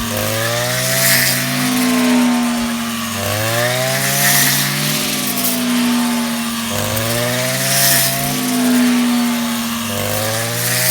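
Rice harvester's engine running steadily and loudly, its pitch sweeping up and down in a repeating cycle about every three and a half seconds.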